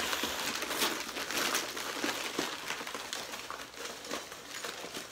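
White wrapping paper crinkling and rustling as a wrapped item is handled and unwrapped, with many small crackles, growing quieter toward the end.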